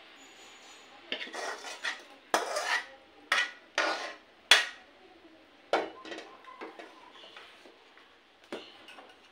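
Steel spoon scraping and knocking inside an aluminium kadai, tipping the tempering (oggarane) into a steel pot of saaru: a quick run of harsh scrapes and clanks from about a second in, then lighter clinks as the spoon stirs in the pot.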